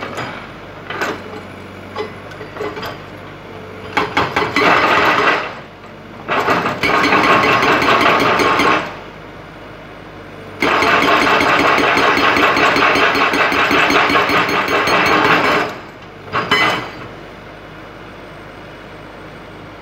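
Excavator-mounted hydraulic rock breaker hammering rock in runs of rapid blows: a few scattered hits, then three long runs with pauses of a second or two between them, and a short last burst. The excavator's engine runs steadily in the pauses.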